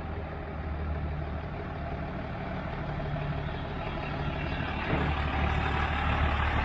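Ram 3500 dually pickup's diesel engine running at low speed while towing a loaded car trailer, getting gradually louder as the truck draws nearer.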